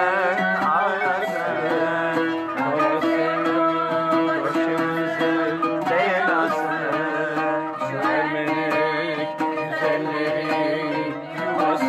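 Background music in a Middle Eastern folk style with string instruments and a wavering melody line.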